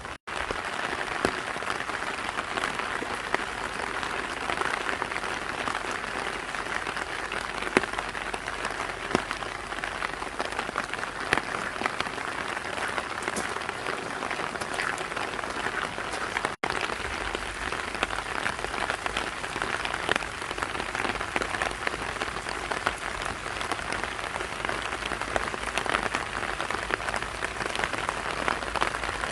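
Steady spring rain falling: a dense, even hiss made of many small drop hits, broken twice by a split-second gap.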